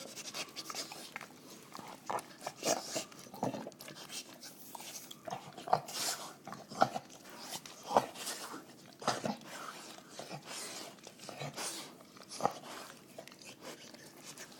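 A bull terrier licking a dish clean, with irregular wet licks and sharp knocks from the dish, the loudest knocks a few seconds apart near the middle.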